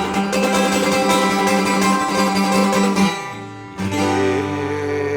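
Acoustic guitar strumming quickly and steadily, breaking off about three seconds in, then a single chord struck and left ringing as the song winds down.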